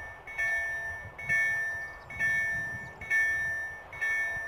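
Level crossing warning bell ringing steadily, one clear strike a little under once a second, each fading before the next, signalling a train approaching the crossing.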